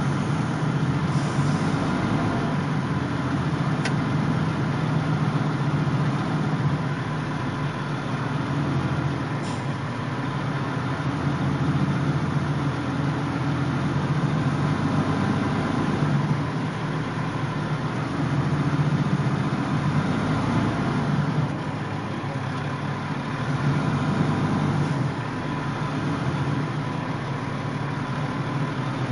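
Heavy-haul truck and trailer moving slowly: a steady low engine drone that swells and eases a little over time.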